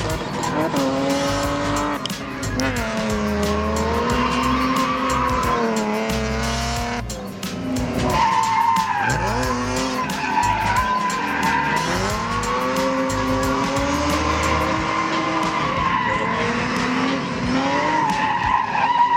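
Drift cars sliding through corners: engines revving up and down over and over, with tires squealing steadily through the slides.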